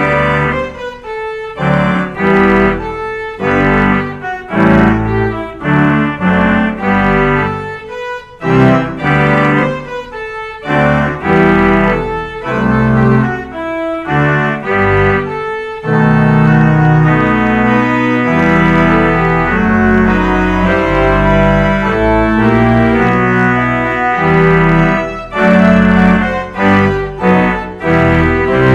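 Organ music: the organ plays short, detached chords over a moving bass, then held, sustained chords from about halfway through.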